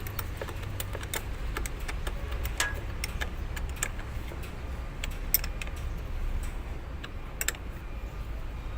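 Scattered light metallic clicks and taps of hand tools working on a car battery's new terminal clamps, over a steady low hum.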